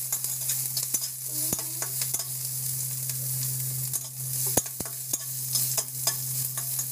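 Sliced onions, bay leaves, whole chillies and panch phoron sizzling in hot oil in a metal wok, with a spatula scraping and knocking against the pan as it stirs them. A steady low hum runs underneath.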